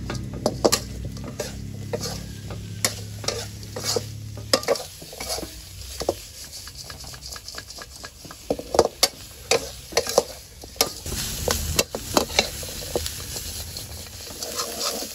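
Metal spatula stirring and scraping food in an aluminium wok, with sharp irregular clanks of metal on metal over a soft sizzle of frying. A low hum underneath stops about four seconds in.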